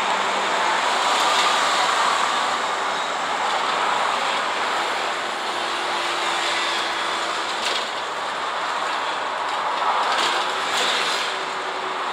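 Inside an Isuzu city bus under way: the steady drone of engine and road noise. A faint whine comes in about halfway through and again near the end, with a few short rattles.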